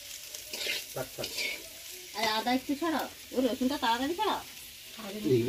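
Raw mutton being worked by hand in a steel bowl as oil is poured over it for a marinade: wet, sticky squelching and crackling of the meat. A person's voice sounds in the middle.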